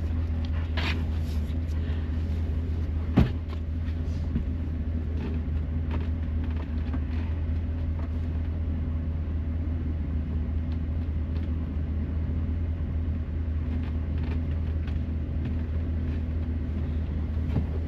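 Motorhome engine idling steadily, with one sharp knock about three seconds in.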